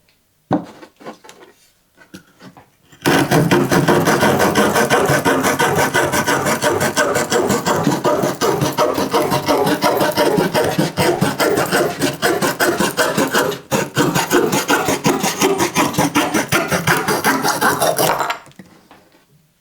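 Saw blade of a Victorinox Swiss Army knife cutting wood in fast, even back-and-forth strokes, the freshly sharpened teeth rasping through the grain. It starts about three seconds in, after a sharp click and a little handling, and stops shortly before the end.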